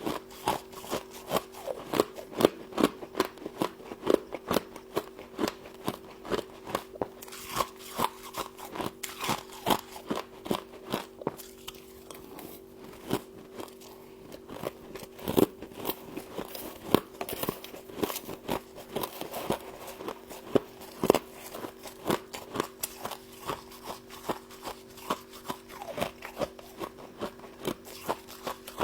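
Frost being bitten and chewed up close, with crisp crunches coming several times a second over a steady low hum.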